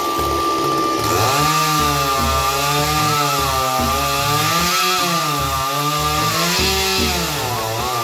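Chainsaw running and cutting, its engine pitch rising and falling as the chain bites into the wood, from about a second in until it eases off near the end. A steady high whine runs alongside.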